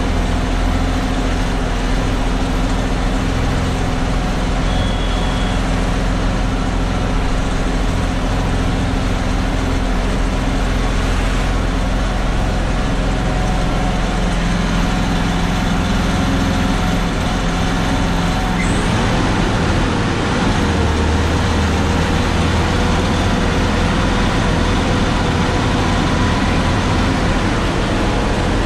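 Heavy truck's diesel engine running under load as it climbs, heard from inside the cab. Its engine note changes about two-thirds of the way through.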